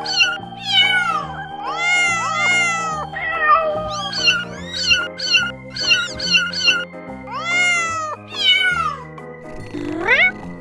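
Very young kittens mewing over and over: thin, high mews that rise and then fall in pitch, coming in a quick run of about two a second through the middle. Background music with held chords plays underneath.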